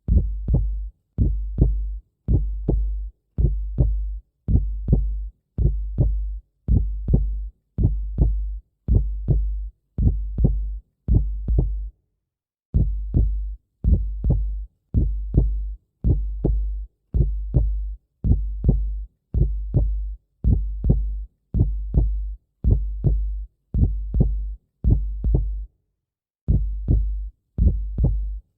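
Heartbeat sound effect: deep double 'lub-dub' thumps, about one pair a second, steady and even, with two brief pauses where the loop restarts.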